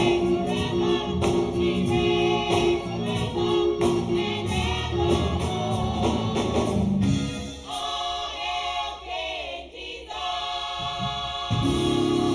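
Gospel praise team of several voices singing in harmony with instrumental accompaniment. About two-thirds of the way through, the bass and low instruments drop out for a few seconds, leaving mostly the voices, then the full accompaniment comes back in near the end.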